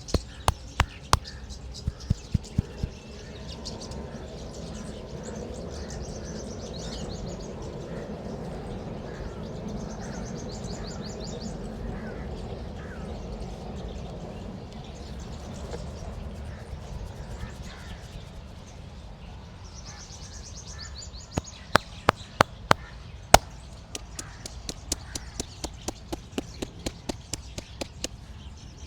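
Hands slapping and tapping rhythmically in a percussive head massage: a quick run of sharp slaps at the start, then, from about three-quarters of the way through, a longer, faster run. In the quieter stretch between, there is steady background noise with birds chirping now and then.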